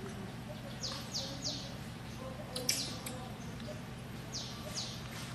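A bird calling in repeated groups of three quick high notes, each sliding downward, with a few sharper chirps between the groups, over a steady low background hum.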